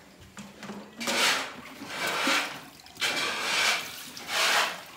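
Milk squirting into a pail as a cow is milked by hand: four hissing spurts, about a second apart.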